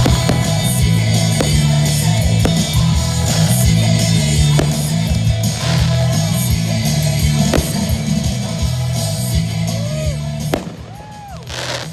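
Rock music with singing and guitar playing loud over a fireworks show. About ten seconds in the music drops away, leaving a few short whistles that rise and fall, and sharp cracks.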